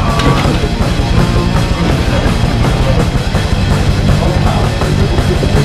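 Loud, fast heavy rock music with pounding drums.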